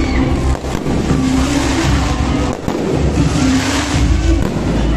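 Fireworks display: rockets launching and shells bursting in a dense, continuous rumble, with music playing over it.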